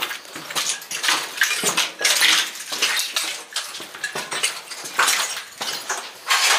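Footsteps crunching and scuffing over debris, an irregular clatter of steps a few times a second.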